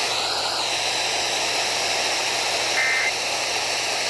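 Weather radio receiver hiss with one short two-tone data chirp about three seconds in. The chirp is the first burst of the Emergency Alert System end-of-message code that closes the warning.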